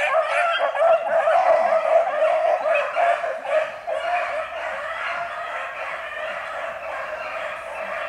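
Pack of beagles baying on a rabbit's scent trail, several voices overlapping in a continuous chorus that is loudest in the first few seconds.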